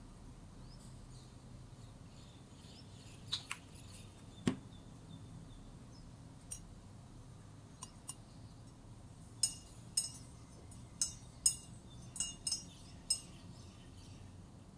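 A metal spoon clinking against the inside of a glass jug while stirring a drink. A few light taps and one duller knock come first, then a quick run of bright, ringing clinks in the second half.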